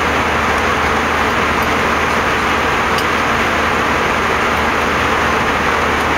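Steady cabin noise of an Airbus A319 in flight: an even rushing hiss of airflow and engines with a low hum beneath.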